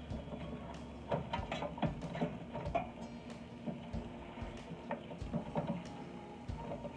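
Cooked shellfish being tossed in a stainless steel pot with a wooden spoon and a spatula: irregular clacks, knocks and scrapes of the utensils against the pot and the mussel shells.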